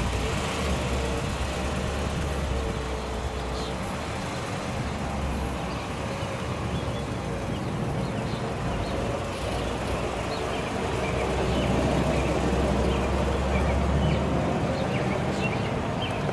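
1955 Chevrolet Bel Air's Power Pack 265 V8 with dual exhausts, rumbling as the convertible pulls away from the stop, turns across the intersection and drives off. It gets a little louder about twelve seconds in, then eases.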